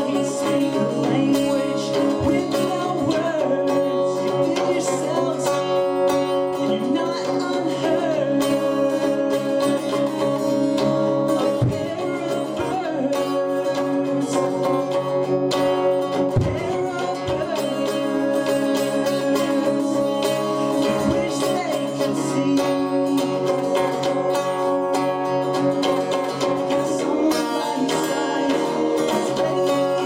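A male singer-songwriter singing while playing an acoustic guitar: a live solo song with steady guitar chords under the voice.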